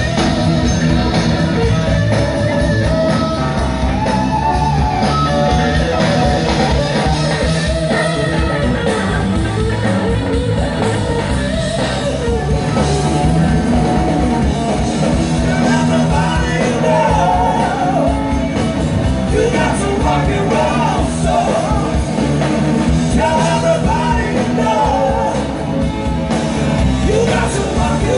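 Loud live rock band playing with a singer, amplified through large PA speakers and heard from within the audience.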